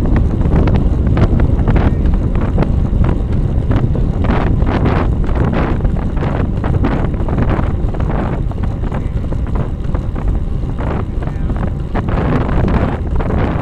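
Wind rushing and buffeting over a bike-mounted camera's microphone at road-cycling speed: a loud, steady low rumble with irregular gusts.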